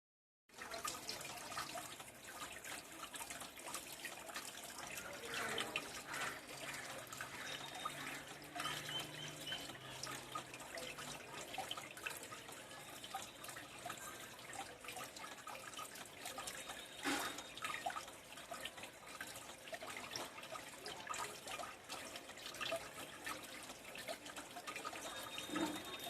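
A homemade decorative water fountain running: water trickling and splashing steadily, with many small droplet splashes.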